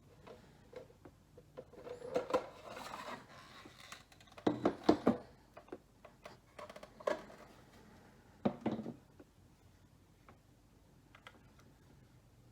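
Plastic toy buckle and its packaging being handled: scattered clicks and short rustles, with the loudest clusters about two, five, seven and eight and a half seconds in, then only faint ticks.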